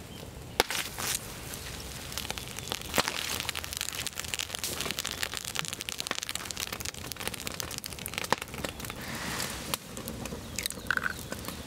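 Wood fire of a Swedish torch log crackling and popping steadily under a hot stone, with an egg frying on the stone; a few sharper pops stand out, the loudest about half a second in.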